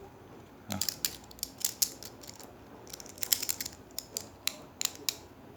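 Metal multitools being handled and opened out: a run of irregular sharp metal clicks and clacks, starting about a second in.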